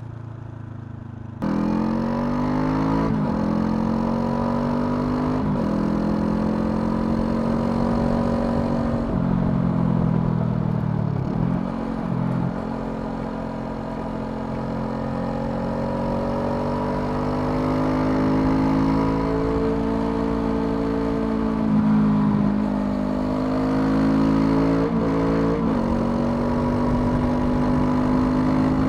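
Honda CL500's parallel-twin engine under way, revving up through the gears with quick drops in pitch at each upshift, easing off for a few seconds midway, then pulling hard again. About a second and a half in, a quieter, steadier engine note gives way abruptly to the louder riding sound.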